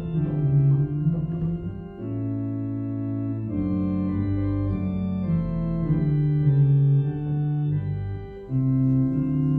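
Church organ playing a hymn in slow, held chords, the notes changing about once a second, with brief breaks between phrases about two seconds in and near the end.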